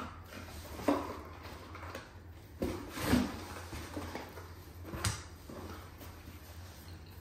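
A dog nosing and pushing about inside a cardboard box, knocking and scraping the cardboard, with louder bumps about a second in, around three seconds and at five seconds.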